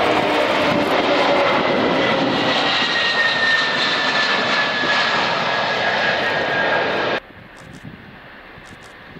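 Antonov An-225's six D-18T turbofan engines at takeoff power as the aircraft lifts off and climbs: a loud jet rumble with a high whine that slowly falls in pitch. About seven seconds in it cuts suddenly to a much quieter engine noise.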